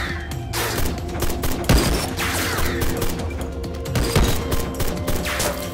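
Film gunfight: about half a dozen rifle and pistol shots at uneven intervals, some trailing a falling whistle, over a dramatic background score.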